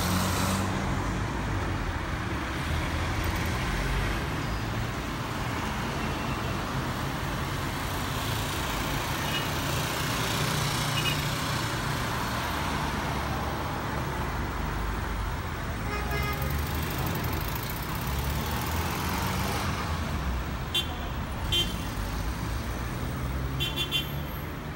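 Steady outdoor engine roar with a low rumble, swelling to its loudest about halfway through and easing off after.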